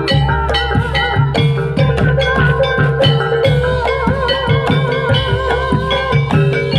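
Javanese jaranan ensemble music led by kendang hand-drum strokes in a quick, busy rhythm. Ringing tuned percussion notes and a wavering, vibrato-laden melody line play over a deep pulsing drum beat.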